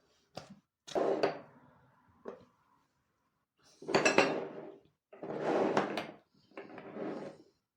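Kitchen handling noises: a couple of light clicks, a sharp knock about a second in with a brief ring after it, then three clattering, scraping bursts of about a second each in the second half.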